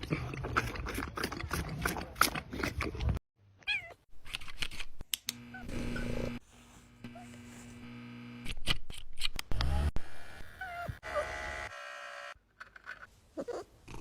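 Kittens meowing in short, high calls spread over several cut-together clips. The first three seconds hold a rapid run of knocks and clatter.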